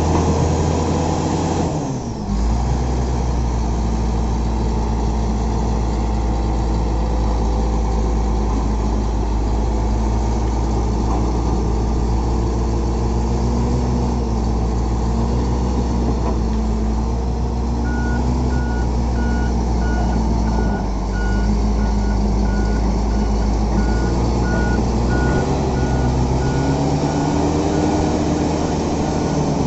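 Shantui SD20-5 crawler bulldozer's diesel engine running steadily, its note dropping about two seconds in and rising again near the end. From a little past halfway a reversing alarm beeps steadily.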